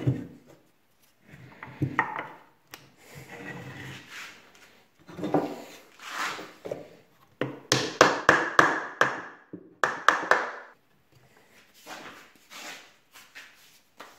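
Steel-headed hammer knocking a glued pine assembly and its wooden dowels together: a quick run of sharp wooden knocks about halfway through, then a few more. Before that, wooden parts are handled, pushed together and rubbed on the bench.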